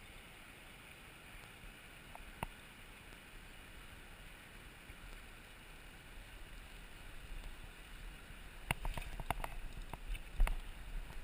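Steady rush of a shallow river. Near the end, a hooked trout splashes at the surface in a run of sharp splashes as it is drawn close.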